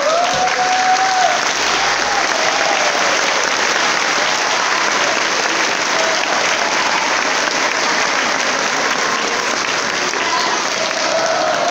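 A crowd clapping steadily, with a few voices calling out near the start and near the end.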